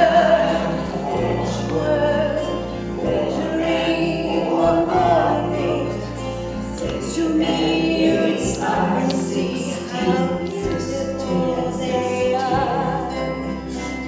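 Music: a woman singing a song over instrumental backing with a bass line.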